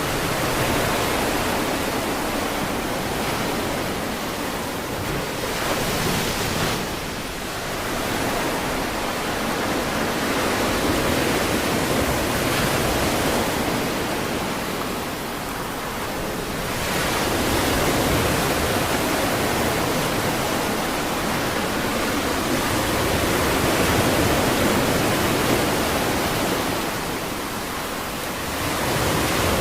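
Ocean surf breaking on a beach: a continuous rushing wash of waves that swells and eases slowly, easing briefly about every nine or ten seconds.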